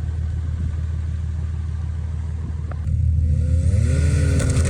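Engine running steadily, then revving up about three seconds in, its pitch rising as it speeds up.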